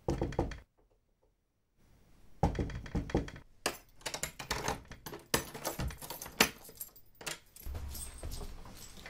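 Keys jangling and clicking in a front-door lock as the door is unlocked, then the door swinging open near the end.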